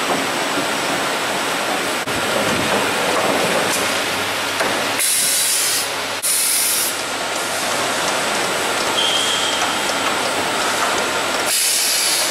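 Double-end tenoner and its powered roller conveyor running as a wooden door is fed through: a steady machine noise, broken by three short bursts of high hiss.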